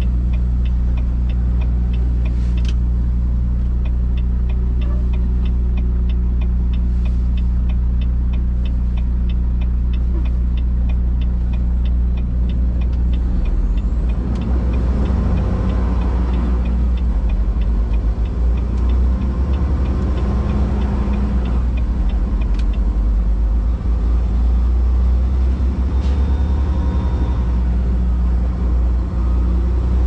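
Volvo VNL860 semi truck's diesel engine running steadily under a loaded trailer, heard from inside the cab, pulling harder with more road noise from about halfway on. A rapid, regular ticking sounds through the first half and then stops.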